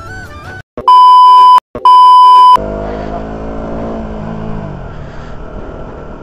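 Two loud electronic bleeps at one steady pitch, each under a second long, about a second in, cutting off the background music. Then a motorcycle engine heard from the rider's seat, its note falling as the bike slows and settling into a steady run with road noise.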